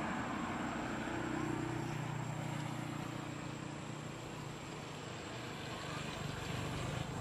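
A steady low engine hum, holding a constant pitch for several seconds, over a continuous background hiss.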